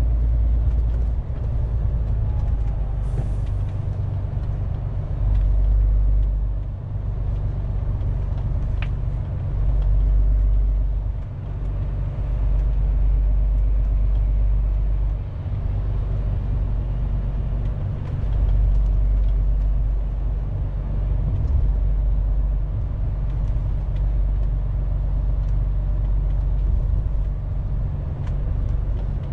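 Inside the cab of a MAN TGX 470 truck on the move: the diesel engine's low drone and road rumble, swelling and easing in loudness every few seconds, with a brief high hiss about three seconds in.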